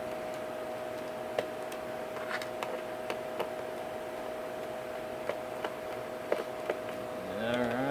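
Small scattered clicks and ticks of a screwdriver and screws being worked out of a laptop's bottom panel, about eight sharp clicks spread through, over a steady hum. Near the end a short murmur of a man's voice.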